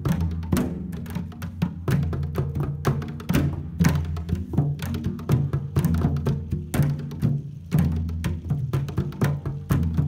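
Empty plastic 5-gallon water jugs hand-drummed by several players at once: a dense, busy rhythm of sharp slaps over low, ringing tones from the jugs' hollow bodies.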